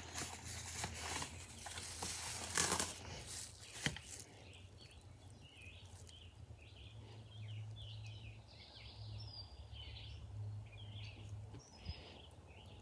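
Cardboard box and plastic bag packaging rustling and crinkling as a bottle is pulled out and handled, ending in a sharp click about four seconds in. After that the sound is quieter, with birds chirping now and then.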